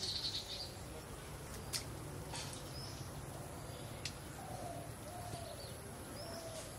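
Birds calling: a flurry of high chirps at the start, then a series of short, low repeated notes in the second half, with two sharp clicks in between.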